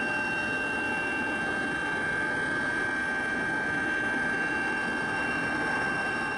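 Steady engine noise: an even drone with several constant high whining tones that never change in pitch or level.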